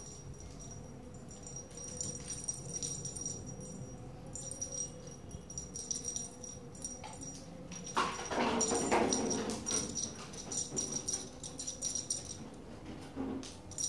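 Small bell on a cat wand toy jingling on and off as kittens bat and grab at it, with a louder noise for about a second and a half about eight seconds in.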